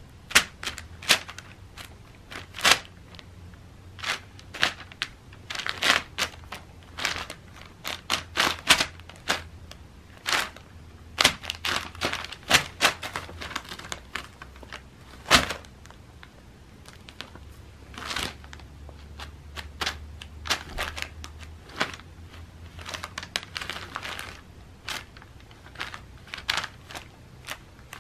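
A cat pawing at and nosing under loose sheets of a paper advertising flyer, the paper crinkling and rustling in quick, irregular bursts.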